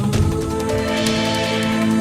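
Background music: sustained synth chords over a steady beat.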